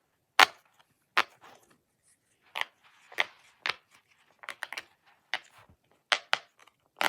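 Irregular sharp clicks and taps, about a dozen, from a fidget toy being handled close to the microphone.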